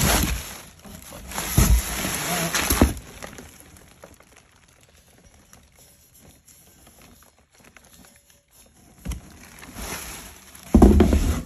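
Bubble wrap and packing paper crinkling and rustling as stainless exhaust pipes are handled in their box. It is loudest over the first three seconds, quiet for a stretch, then rustles again near the end.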